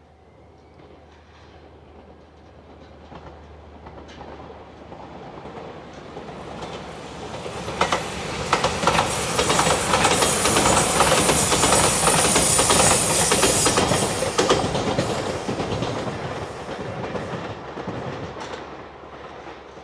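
Shiokaze limited express electric train passing at speed: it builds over several seconds to a loud rush with rapid wheel clicks over the rail joints, then fades away.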